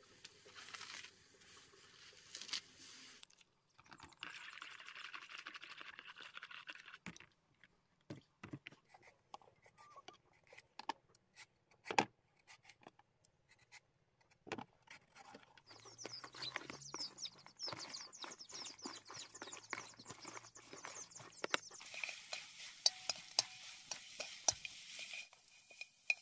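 Leafy greens hitting a hot wok and sizzling, then kitchen handling sounds: a spoon scraping and clinking against plastic bowls, with scattered sharp clicks and a dense run of quick ticks. A steady hiss comes in near the end.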